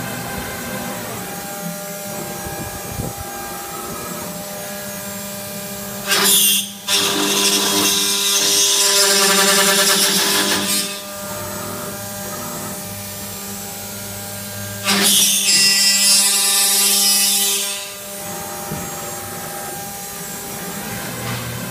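ino XP 6000 CNC aluminium profile machining centre running with a steady whine, its spindle cutting into an aluminium profile twice with a loud, harsh noise, from about six to eleven seconds in and again from about fifteen to eighteen seconds in.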